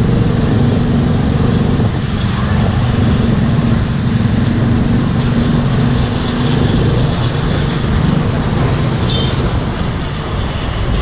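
Road traffic heard from a motorbike riding slowly among scooters and trucks: a steady engine rumble with the noise of surrounding vehicles, and a brief high squeak near the end.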